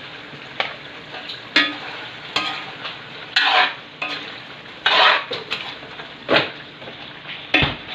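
Metal utensil stirring and scraping chunks of beef in a wok over a steady sizzle of frying, with clanks and scrapes against the pan about once a second and a couple of longer scrapes around the middle.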